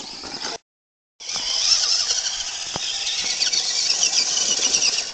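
RC rock crawler's electric motor and gearbox whining under load as it climbs a steep slope, starting about a second in, the high pitch wavering with the throttle. One sharp click a little under three seconds in.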